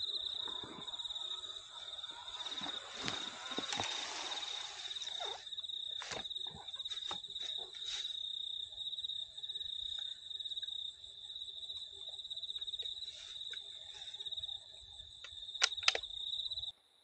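Crickets chirping in a steady, fast pulsing trill that cuts off suddenly near the end, with scattered rustling and short clicks close by.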